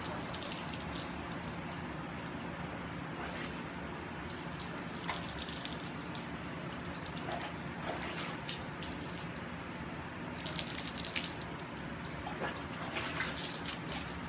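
Water running steadily, with scattered splashes and drips, during a dog's bath.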